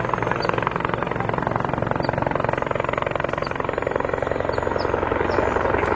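Helicopter flying steadily, its rotor chop a fast, even beat over steady engine and rotor noise.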